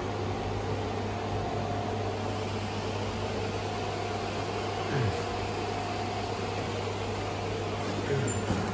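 Steady hum of a jewelry laser welder and its water chiller, powered on and idling between welds, with a faint steady whine above the low hum.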